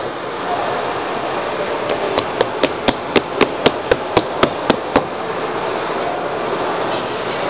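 Roller coaster ride mechanism clicking: about a dozen sharp, evenly spaced mechanical clicks, about four a second, over a steady background noise.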